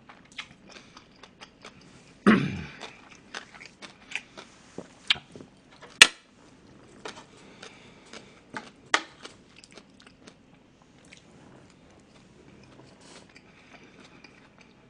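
Close-miked eating: chewing and mouth noises from a mouthful of fried rice, with scattered sharp clicks of a metal spoon against the dish, the sharpest about six seconds in.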